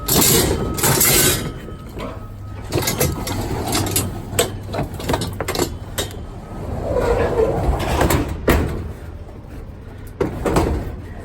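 Scrap metal scraping and banging as it is unloaded off a pickup truck's bed, a string of sudden knocks and grinding slides over a steady engine hum.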